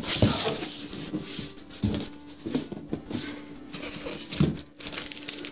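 Cardboard box flaps and plastic-wrapped packaging rustling and scraping as they are handled, with irregular soft knocks while the box is unpacked by hand.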